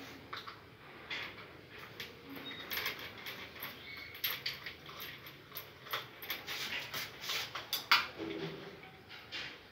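Metal clicks, taps and scrapes of a screwdriver and loose parts as a rolling steel door motor is taken apart, with one sharp, loud click about eight seconds in.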